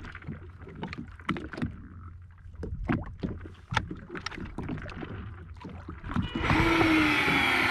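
Small slaps and knocks of calm water against a jet ski's hull. Near the end, a fishing reel winds line in with a steady whine for about two seconds, lifting the deep-drop rig up off the muddy bottom.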